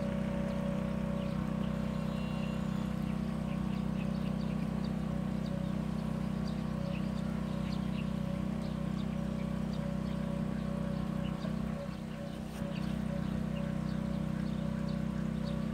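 Steady low mechanical hum, as from a motor running, made of several fixed tones, with faint scattered ticks higher up; it dips briefly about twelve seconds in.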